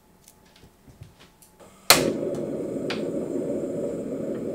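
Portable gas stove being lit: a few small clicks as the knob is turned, a sharp snap of the igniter about two seconds in, then the burner flame burning with a steady low rush.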